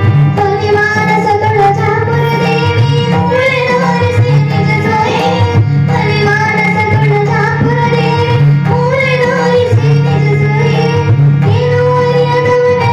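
A female voice singing a devotional song, accompanied by harmonium and tabla.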